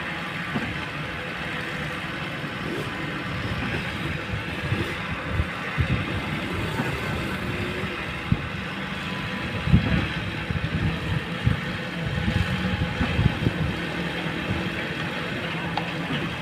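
Long-boom excavator's diesel engine running steadily, with irregular low thumps and knocks through the middle, the loudest about ten seconds in.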